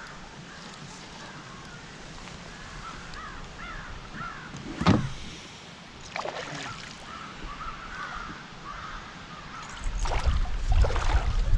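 Birds calling repeatedly in the background, with a sudden loud knock about five seconds in, a weaker one a second later, and low rumbling handling and water noise from about ten seconds in.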